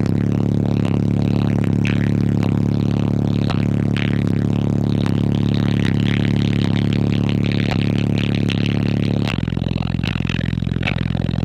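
Very loud bass from a car audio system of five Crossfire C7 15-inch subwoofers, heard from inside the cabin as one steady, heavily distorted low drone with rattling. The note changes about 9 s in.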